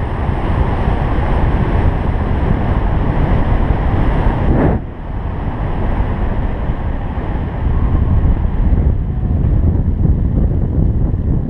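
Wind buffeting a GoPro Hero 3's microphone during a fast bicycle ride down an asphalt road, a loud, steady rushing rumble that eases a little about five seconds in.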